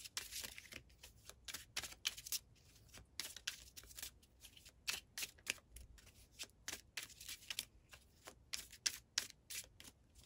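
Tarot cards being shuffled by hand: a continuous run of quick, irregular card flicks and slaps.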